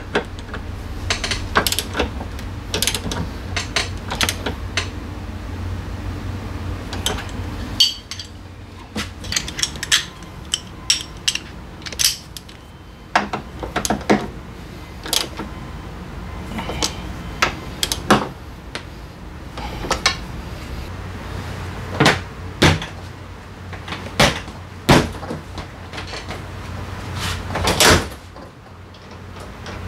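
Hand tools and metal and plastic parts clicking and clanking in scattered, irregular knocks during scooter maintenance work. A steady low hum runs under the first eight seconds or so and then stops.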